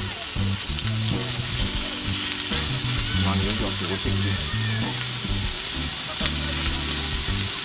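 Beef striploin slices sizzling steadily on a small cast-iron pan over a solid-fuel mini brazier. Background music with shifting low notes plays underneath.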